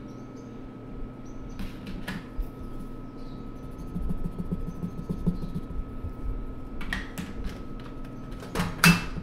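Derwent Inktense stick scribbling on paper in quick back-and-forth strokes for a second or two, amid a few short clicks and knocks of art supplies handled on the table, the loudest near the end. A faint steady hum runs underneath.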